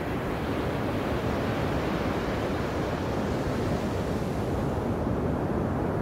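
Ocean surf breaking and washing up a sandy beach: a steady rushing noise of waves, its upper hiss thinning near the end.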